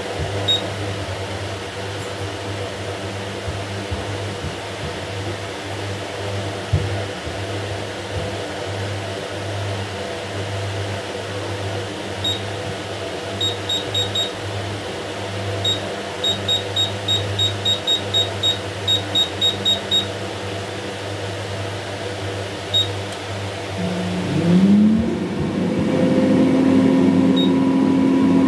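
Touch-panel beeps of an air fryer oven as its cooking timer is stepped up: a few single beeps, then a quick run of about three beeps a second, over a steady low hum. Near the end a motor spins up with a rising whine and settles into a steady, louder drone, the oven starting to run.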